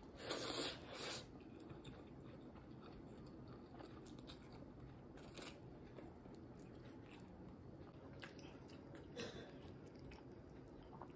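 Close-up mouth sounds of a person eating fried egg: a loud, wet bite and chew in the first second as the egg is pushed into the mouth, then quieter chewing with a few soft smacks.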